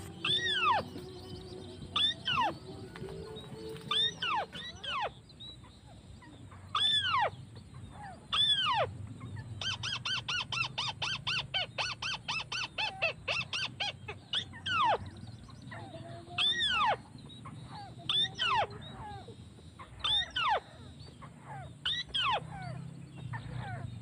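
White-browed crake calls: loud, sharply falling notes repeated every one to two seconds, with a fast rattling run of short notes in the middle, used to lure crakes to the snares.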